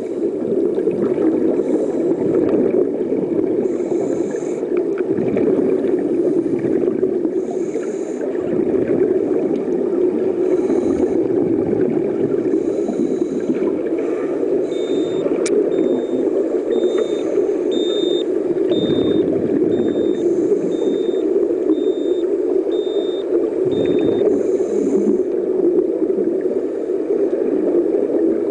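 Steady, muffled underwater noise heard through a submerged camera, with scuba divers' exhaled bubbles hissing and gurgling every couple of seconds. About halfway in, a run of evenly spaced electronic beeps, roughly one a second, goes on for several seconds.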